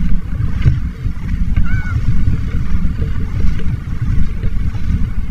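Wind buffeting the microphone, a dense, uneven low rumble, with water sloshing around legs wading through shallow sea water.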